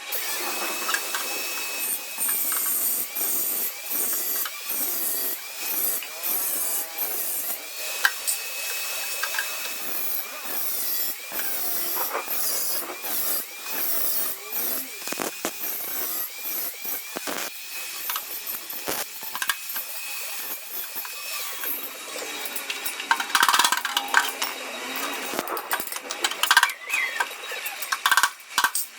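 A handheld power tool working on sheet metal: a steady whine that dips over and over in a quick rhythm, with scraping and short knocks, busier near the end.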